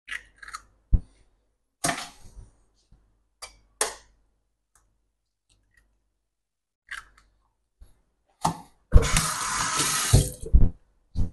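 Eggs being cracked and the shells pulled apart over a small ceramic bowl: a few sharp taps and clicks in the first few seconds, and a couple more later. Near the end a kitchen tap runs for about a second and a half.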